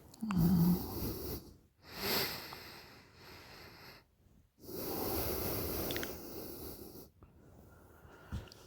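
A woman snoring in her sleep: a short, low, pitched snort about half a second in, then heavy, noisy breaths, the longest from about four and a half to seven seconds.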